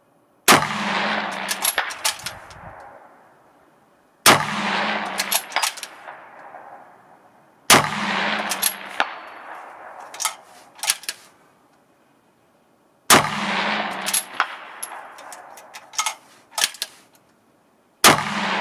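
Five rifle shots from a bolt-action Tikka in 6.5 Creedmoor fitted with an OTK-MBC muzzle brake, fired three to six seconds apart. Each is a sharp crack with a long echoing tail under the shelter roof, followed by a few short sharp clicks.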